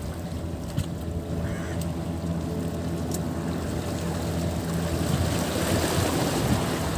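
Small waves washing against shoreline rocks over a steady low engine hum, with wind buffeting the microphone more strongly in the second half.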